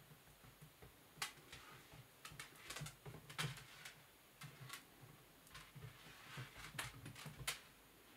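Light, irregular taps and clicks of two British Shorthair kittens' paws and claws on a wooden tabletop as they scamper and pounce at a feather wand toy.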